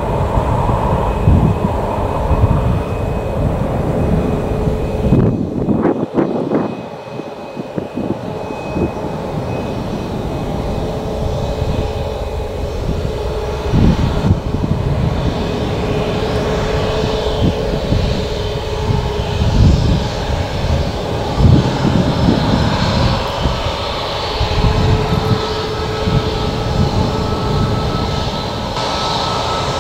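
Boeing 737 MAX 8's CFM LEAP-1B turbofan engines running at taxi power: a steady whine over an uneven low rumble. The level drops briefly about six seconds in, then the engine sound goes on.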